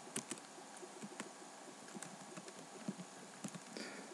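Faint, irregular clicks of computer keyboard keys over a low hiss, as a line of code is copied and pasted.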